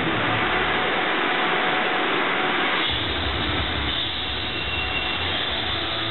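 A loud rushing sound effect from a promotional movie, heard through a hall's loudspeakers. It has almost no bass until a low rumble comes back about three seconds in.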